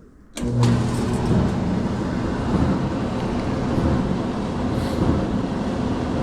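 Whirlpool Dry Miser clothes dryer switched on with a click about half a second in, then its motor and drum running with a steady rumble on a test run after a bearing repair and clean-out.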